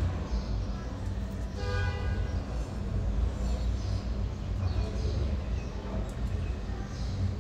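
Steady low background rumble with a faint hum, and a short pitched toot about two seconds in.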